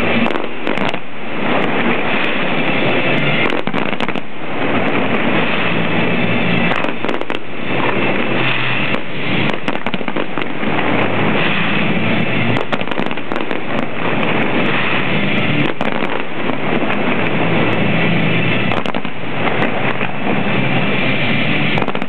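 Aerial firework shells bursting in quick succession: a dense, unbroken barrage of bangs and crackle.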